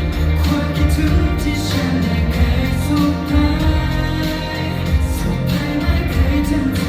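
Live pop music through a concert sound system: a heavy bass line under sustained chords, playing steadily.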